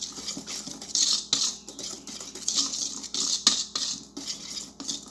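Wire whisk stirred by hand through cake batter in a stainless steel bowl: repeated swishing strokes with light clinks of the wires against the steel.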